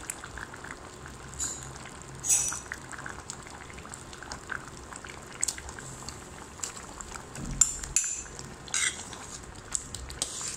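Red lentil dal simmering and bubbling in a metal pot, with clinks and scrapes of a bowl and spoon against the pot as tomato slices are tipped in and stirred. The sharpest clinks come about two seconds in and again around eight to nine seconds in.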